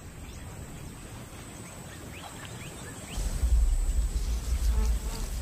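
Faint short rising bird chirps over a quiet background. About three seconds in, a loud, deep low rumble starts and keeps going.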